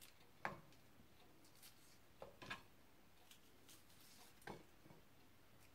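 Near silence with a handful of faint, short clicks and rustles: hands pulling the seeds and cores out of halved green peppers on a cutting board.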